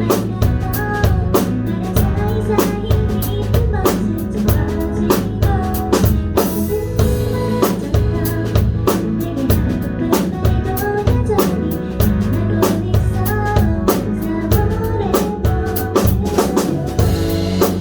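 Live band music with no lyrics: a drum kit keeps a steady beat with bass drum and snare, under a bass line and a melody.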